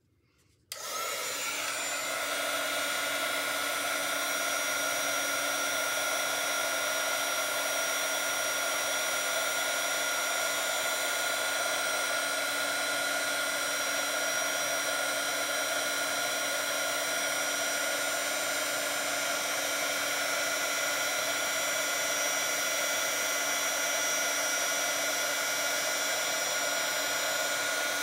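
Embossing heat tool switched on just under a second in and blowing steadily: a fan whir with a constant whine, heating gold embossing powder on a stamped card until it melts.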